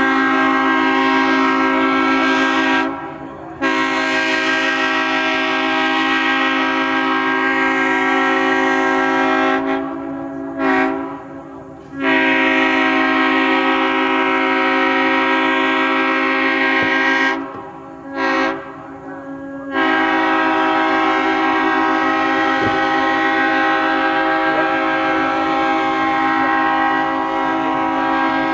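Multi-chime locomotive air horn sounding a sustained chord in a series of long blasts. Short toots come in two of the gaps, and the last blast lasts about nine seconds.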